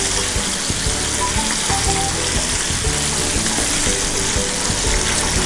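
Batter-coated tuna pieces sizzling in hot frying oil in a pan: a steady, even hiss.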